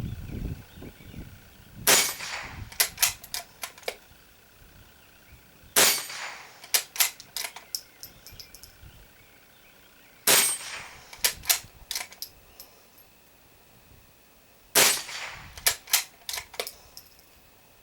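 Glenfield Model 25 bolt-action .22 LR rifle fired four times, about four and a half seconds apart. Each shot is followed by a quick run of metallic clicks as the bolt is worked to eject the case and chamber the next round.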